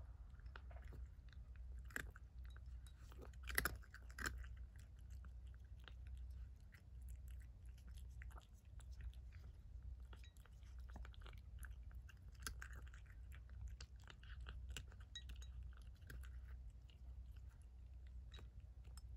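A cat eating from a bowl: a steady run of small chewing clicks and crunches, with a few louder clacks about three and a half to four seconds in.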